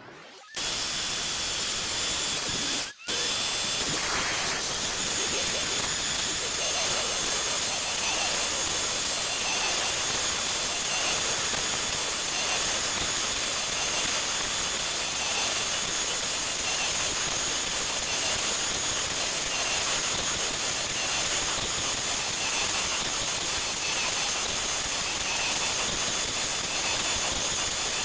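The high-speed motor of a rose engine lathe's cutting frame running steadily, a loud hiss with a high whine, as the machine makes a helical ornamental cut. The sound breaks off for a moment about three seconds in, then resumes unchanged.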